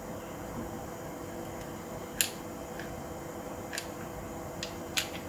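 A few small, sharp clicks and taps of the Hi-Capa gas-blowback pistol's small internal parts being handled and fitted during reassembly, the loudest about two seconds in and near the end. A steady faint hum runs underneath.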